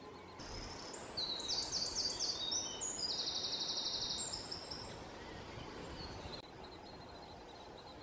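A songbird singing one phrase of about five seconds: a run of quick descending high notes, then a fast even trill, before it fades. Faint repeated high calls sound behind it.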